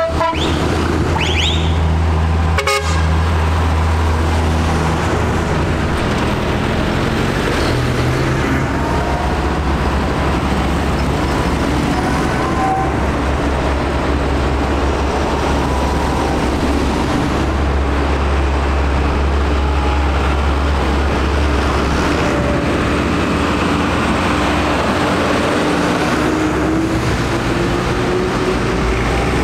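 Procession of diesel farm tractors driving past one after another, their engines running steadily and loudly, with short horn toots now and then.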